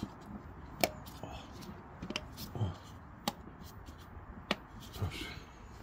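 Plastic engine cover of a BMW E38 740iL being pressed down by hand and snapping into its mounts: four sharp clicks about a second apart, with softer thuds of the hands on the cover between them.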